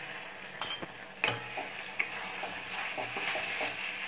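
Chilli chicken sizzling in a kadhai while it is stirred with a wooden spatula: a steady frying hiss with a few sharp knocks and scrapes of the spatula against the pan.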